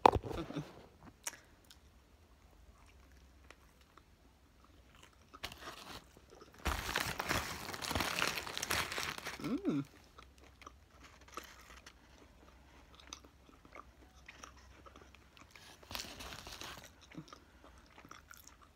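A person chewing and crunching fast food close to the microphone, with a sharp knock right at the start and a louder stretch of crunching of about three seconds around the middle.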